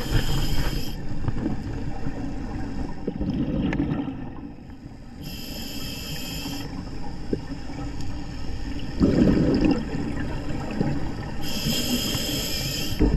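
Scuba regulator breathing underwater: a hissing inhale through the regulator three times, about six seconds apart, with a bubbling low rumble of exhaled air between breaths.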